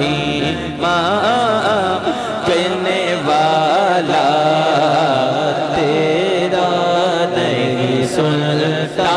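A man singing a naat into a microphone in long, drawn-out phrases whose pitch slides up and down, over a steady low drone.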